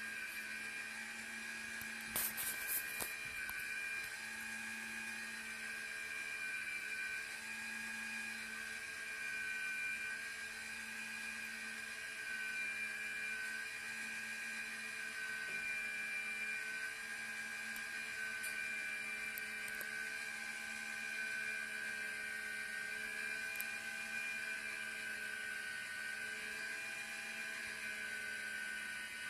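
Electric positioner motor of a motorised satellite dish mount whirring steadily with a high whine as it swings a 1.2 m Channel Master dish across the satellite arc. A brief rattle of clicks comes about two seconds in.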